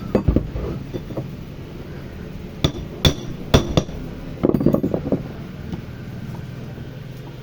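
Metal tools and parts knocking and clinking during work on a cutter machine: sharp separate strikes near the start and around three seconds in, then a quick cluster of clinks about four and a half seconds in, over a faint low hum.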